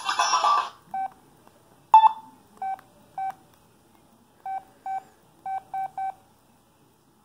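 A phone ringtone cuts off, then a Samsung Freeform's keypad gives about nine short, same-pitched key-press beeps at irregular spacing; the one about two seconds in is louder, slightly higher and starts with a click.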